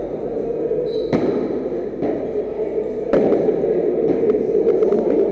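Padel ball struck by rackets during a rally: two sharp hits about two seconds apart, with a few fainter knocks, over a steady background hum.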